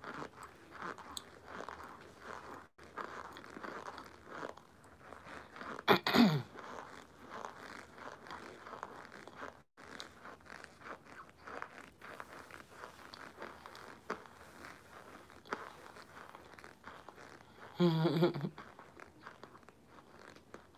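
Close-up crunching and chewing of baked cornstarch chunks in the mouth: a steady run of small crackles, with two louder moments about 6 and 18 seconds in.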